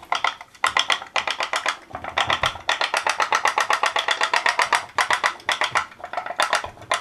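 Candle-heated putt-putt (pop-pop) boat's soda-can steam engine popping rapidly, about eight to ten pops a second, in runs broken by brief pauses.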